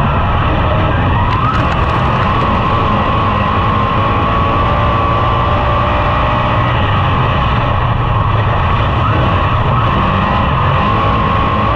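Dirt-track modified race car's V8 engine running at a steady speed, heard from inside the cockpit, with a thin whine holding a steady pitch over it. This is the car rolling at an even pace while lined up for a restart.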